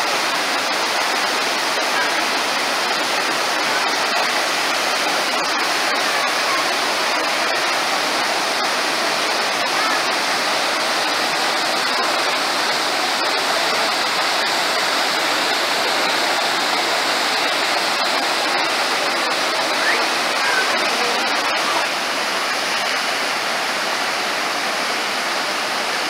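Düden Waterfall: several falls plunging into a pool, with rapids churning below, making a steady, unbroken rush of water.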